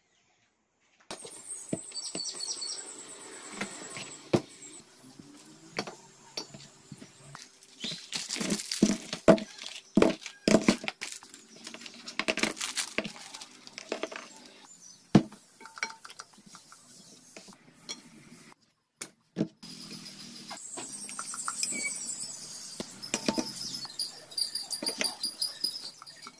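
Small metal engine parts, ball bearings and oil seals, being picked up and set down on cardboard: scattered clinks and knocks, busiest in the middle. High chirps in the background near the end.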